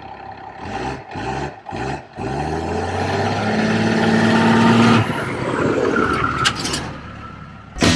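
1995 Dodge pickup's 12-valve Cummins 5.9-litre inline-six turbo diesel accelerating toward and past the camera, its pitch rising with a few short dips in the first two seconds. It is loudest as the truck passes, about five seconds in, then fades.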